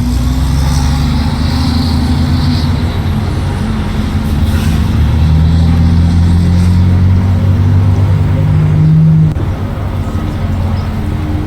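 Motor vehicle engine running while driving, a steady low drone. It grows louder from about five seconds in, then drops off suddenly about nine seconds in.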